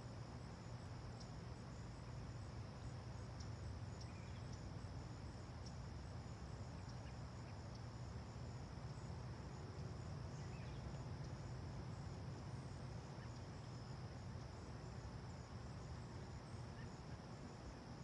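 Crickets chirring steadily in a continuous high trill, with a faster pulsing layer above it, over a low steady rumble.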